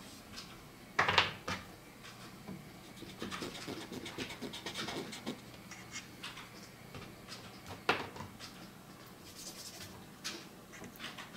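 Brush pen drawing on paper: scratchy pen strokes with small clicks, and two louder sharp knocks, about a second in and again near eight seconds in.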